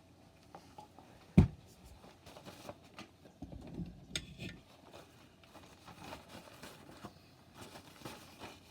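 Small handling and rubbing noises as a graphics card is wiped clean of old thermal paste with a cloth, with scattered light ticks and scrapes. One sharp knock about a second and a half in is the loudest sound.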